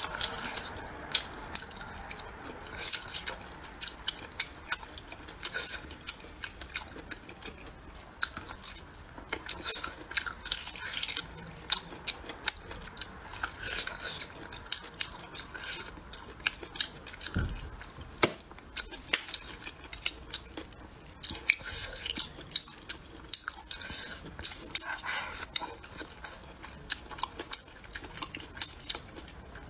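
Close-miked eating of braised pork trotter: chewing and lip-smacking with many sharp, irregular mouth clicks. Chopsticks click against the bowl near the end.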